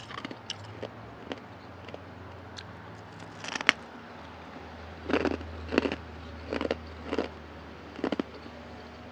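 A person biting and chewing ice with crisp crunches. Faint crackles come first, then a run of about six loud crunches starting about three and a half seconds in.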